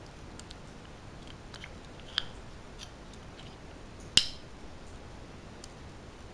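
Metal spoon stirring a thick mix of olive oil, honey and cinnamon in a small glass: faint scrapes and ticks, with two clear clinks of the spoon against the glass, one about two seconds in and a louder one about four seconds in.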